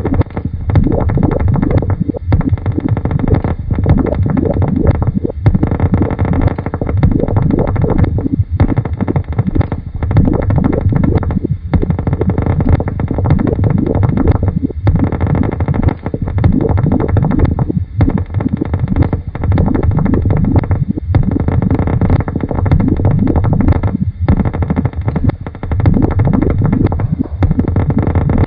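Experimental electronic and tape-music noise: a dense, low, rumbling texture, interrupted by brief cut-outs every second or two.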